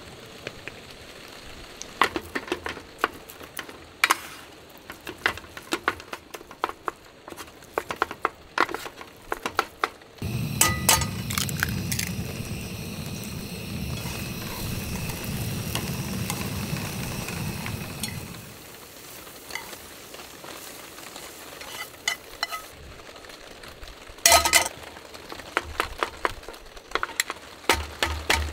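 Breakfast cooking: eggs frying in a pan while metal utensils click and clink against the pan and dishes. About ten seconds in, a steady low rushing sound starts and runs for about eight seconds, then the clinking picks up again near the end.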